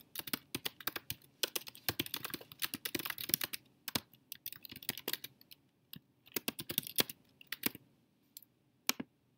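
Typing on a computer keyboard: fast runs of key clicks broken by short pauses, thinning to a few single keystrokes near the end.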